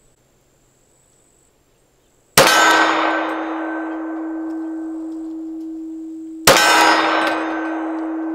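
Two pistol shots from a Glock 23 in .40 S&W, about four seconds apart, each striking a steel silhouette target. After each sharp hit the steel rings on with a steady tone that fades over several seconds.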